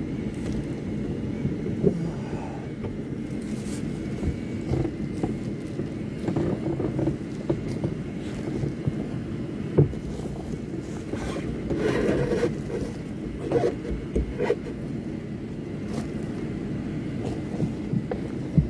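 Steady low rumble with scattered knocks and scraping sounds, a few sharp knocks standing out above it.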